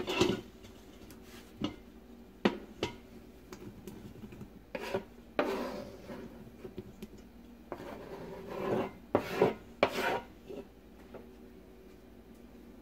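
A metal spatula scraping cubed smoked sausage off a plastic cutting board into a stainless steel cooker pot: scattered short scrapes and taps of the utensil, with quiet gaps between them.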